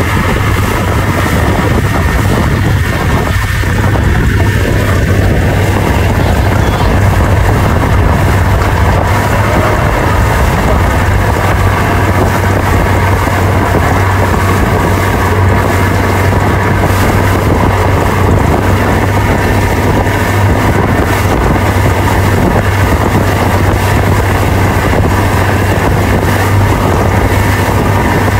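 Towing motorboat's engine running steadily at speed, a constant low drone, with wind buffeting the microphone.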